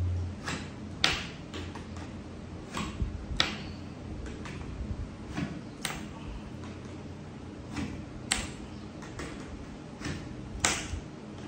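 Crossbow bolts being pushed one by one into a DA01 magazine on an Alligator II crossbow: a dozen or so sharp plastic-and-metal clicks and knocks at uneven intervals as the magazine is packed full.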